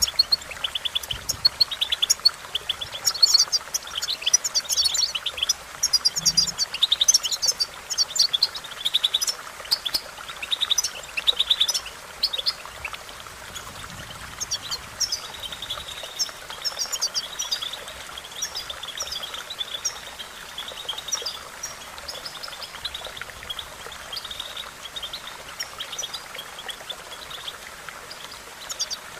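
European goldfinch singing: a fast, tinkling twitter of short high notes, densest in the first half, easing into a steadier trill in the middle.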